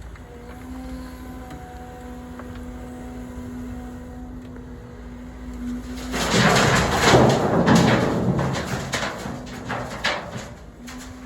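A diesel engine runs with a steady hum. About six seconds in, a loud rattling rumble full of sharp knocks takes over for about five seconds.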